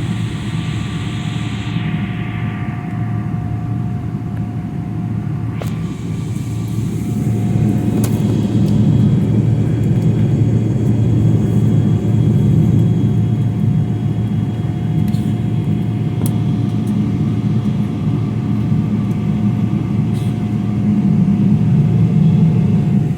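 Airliner cabin noise: a steady low rumble of the engines and airflow with a thin steady whine, growing louder about a third of the way in.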